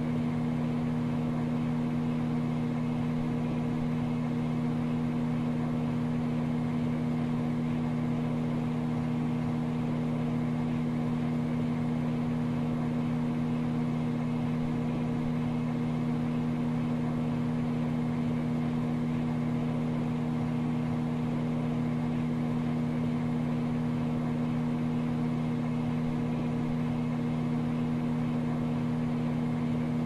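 Microwave oven running: a steady, unchanging hum.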